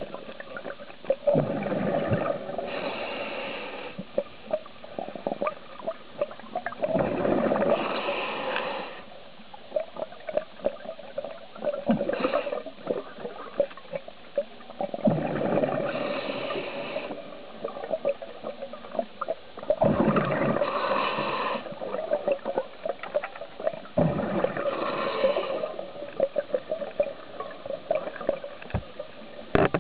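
Scuba diver breathing through a regulator underwater: a rush of exhaled bubbles gurgling up in regular swells about every four to five seconds, with a steady bubbling crackle in between.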